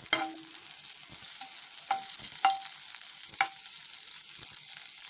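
Butter sizzling as it melts in a hot frying pan, with a steady hiss. A utensil taps or scrapes the pan four times, each strike ringing briefly.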